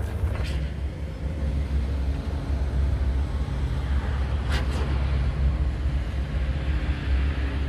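Steady low rumble of background noise, with one brief, higher sound about four and a half seconds in.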